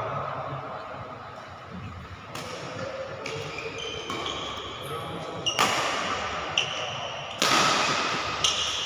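Badminton doubles rally: rackets striking the shuttlecock in a series of sharp smacks a second or two apart, with short high squeaks between them, in a reverberant hall.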